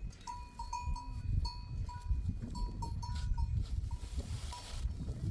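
Small bells on a flock of livestock clinking irregularly in short ringing tones, over a steady low rumble.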